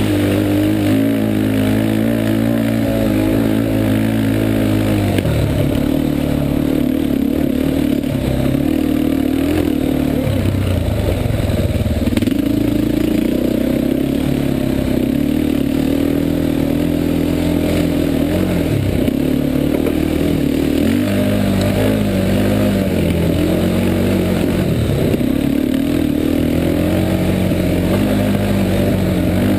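Yamaha Warrior 350 quad's single-cylinder four-stroke engine running hard on a rough dirt trail, its pitch climbing and dropping over and over as the throttle is worked, with several deeper drops and pickups.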